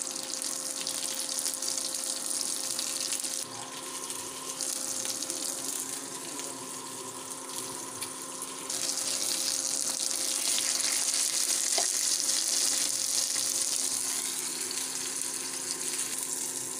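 Masala-coated whole fish shallow-frying in oil in a pan: a continuous sizzle over a steady low hum. The sizzle drops a little about three seconds in and grows louder and brighter about halfway through.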